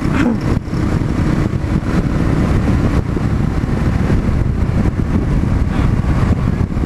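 Kawasaki KLR650 single-cylinder motorcycle running steadily at highway cruising speed, with heavy wind rumble on the helmet-mounted camera microphone.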